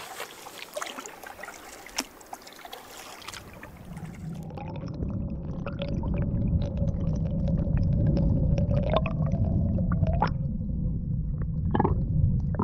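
Lake water heard underwater through a submerged camera's housing: a muffled low rumble and gurgle that builds from about four seconds in, with scattered clicks. Before it, faint rustling and a single sharp click.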